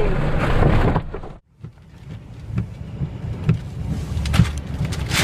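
Storm wind and rain battering a vehicle from inside: a low rumble with scattered sharp knocks and patters. The sound cuts out briefly about a second and a half in, then builds back up.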